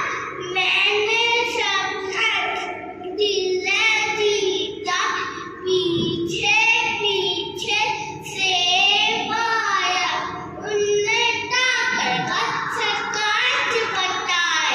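A young child singing a nursery rhyme into a microphone, in short phrases with brief pauses between them.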